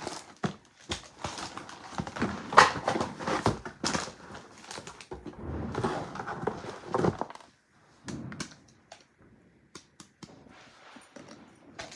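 Gift box and its wrapping being handled: irregular crinkling, tapping and clicking, busy for the first several seconds, then thinning to scattered light ticks and soft rustle.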